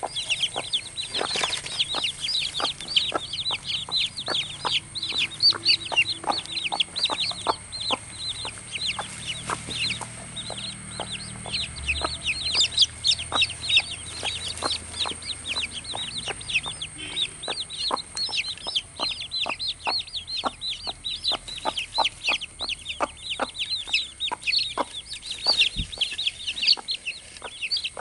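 A brood of newly hatched chicks peeping without pause: a chorus of short, high, falling peeps, several a second. Under it, from time to time, the mother hen's low clucking.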